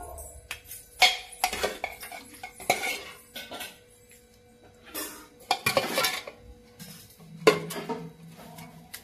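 Metal ladle scraping and clinking against steel cookware and a steel plate as chicken curry is served out, in about four bouts of knocks and scrapes spaced roughly two seconds apart.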